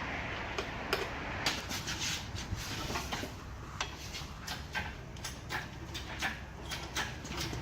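Irregular light clinks and knocks, several close together at times, over a steady low hum.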